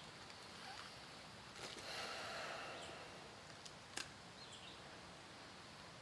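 Quiet outdoor ambience: a faint rushing swell about two seconds in, two small clicks, and faint high chirps.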